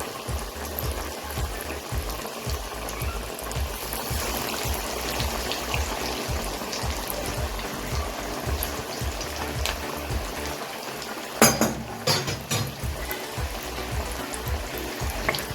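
Chicken wings deep-frying in hot oil, a steady bubbling hiss, under background music with a pulsing beat. A few sharp knocks come about twelve seconds in.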